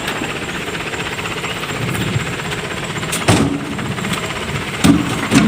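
A vehicle engine runs steadily. Three heavy thuds come in the second half, two of them close together near the end.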